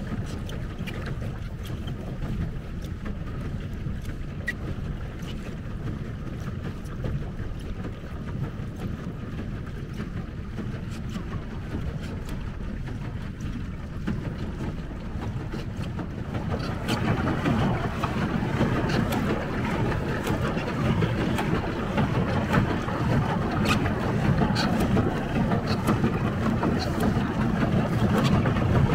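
Wind buffeting the microphone over water lapping and splashing against a pedal boat. The splashing grows louder and brighter about halfway through, with small scattered droplet-like ticks.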